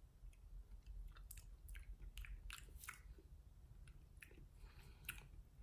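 Faint lip smacks and small mouth clicks from a man tasting cigar smoke between puffs, over a low steady hum.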